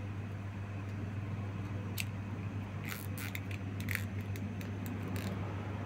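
Hard plastic Lego dinosaur figure parts clicking as they are handled and snapped together: a single click about two seconds in, then a quick run of clicks over the next couple of seconds, over a steady low hum.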